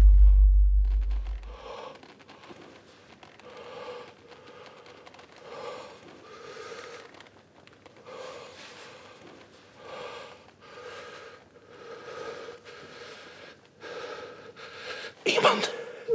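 A man breathing in short, audible gasps, about one a second, while a deep low rumble dies away in the first two seconds. A louder vocal sound breaks in near the end.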